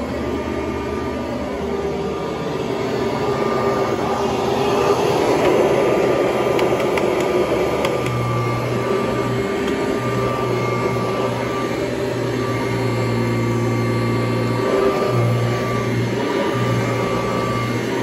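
Kirby Heritage upright vacuum cleaner running steadily while being pushed over a rug, its motor giving a steady whine. A lower hum comes and goes in the second half.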